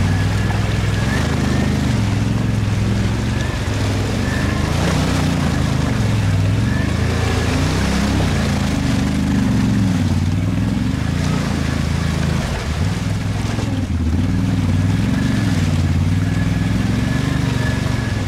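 ATV engines running, their pitch rising and falling again and again as the throttle is opened and eased, with a steady hiss over them.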